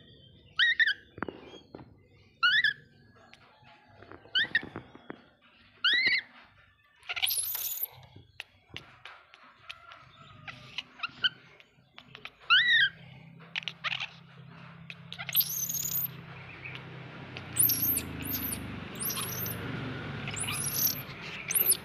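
Baby macaque giving short, high-pitched chirping squeaks, repeated every second or two and coming faster near the end. A steady low hum runs underneath in the second half.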